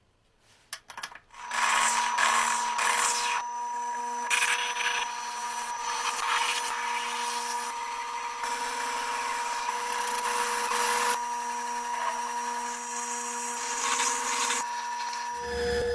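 A few clicks, then a small power tool's motor starts and runs steadily with a high whine and a rough grinding noise that swells and dips. Near the end the sound changes to a deeper hum.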